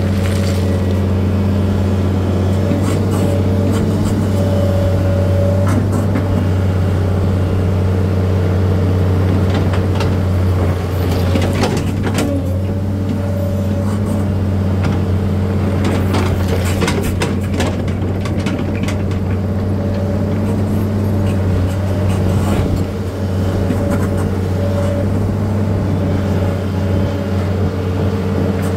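An engine running at a steady pitch throughout, with scattered clicks and rattles over it, heaviest about a third and just over halfway through.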